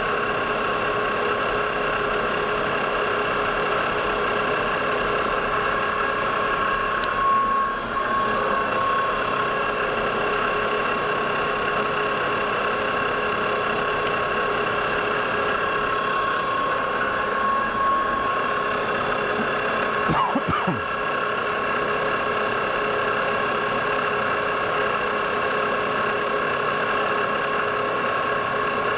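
A steady mechanical hum with several constant tones, like a machine running. A few brief knocks come about seven seconds in and again about twenty seconds in.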